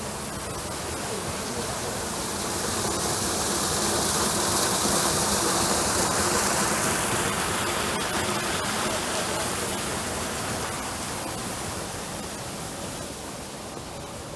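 Rushing water of a small waterfall on a stream: a steady noise that grows louder toward the middle, then fades away.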